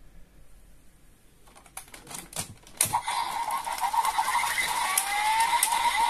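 Plastic clicking from a DX Desire Driver toy belt as its Ninja and Boost Raise Buckles are worked by hand, then, from about three seconds in, the belt's electronic sound effects from its speaker: steady tones with rising sweeps and repeated clicks.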